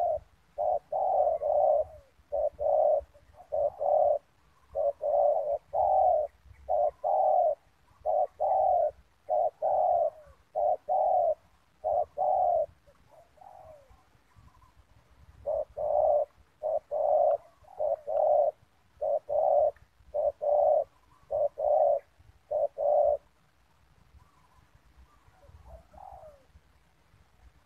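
Spotted dove cooing: loud, rhythmic runs of short coo notes, a pause partway through, then more runs. Fainter coos fill the gaps near the middle and near the end.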